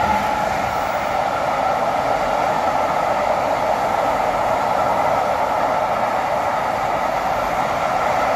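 Container freight train wagons rolling past on the rails: a steady, unbroken rolling noise of steel wheels on track.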